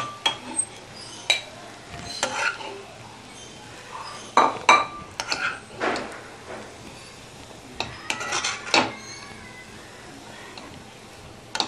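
A serving spoon scraping and clinking against a wok and a ceramic bowl as fried rice is dished out, in short, irregular knocks and scrapes with quiet gaps between.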